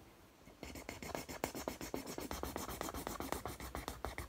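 Blue felt-tip pen scribbling on paper in fast back-and-forth strokes, colouring in an area. It starts about half a second in, after a brief pause with the pen lifted.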